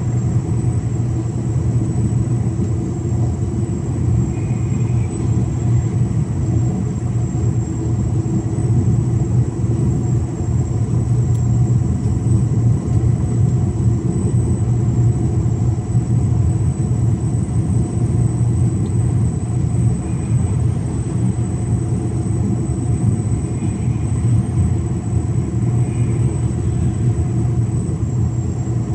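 Mercedes-Benz Actros 1853 truck's engine running steadily under way with an empty semi-trailer: an even low drone that holds constant, with a thin high whine above it.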